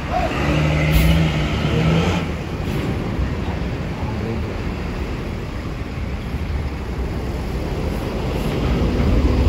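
Diesel coach engines running at low speed: a steady low rumble, with a louder engine note in the first two seconds.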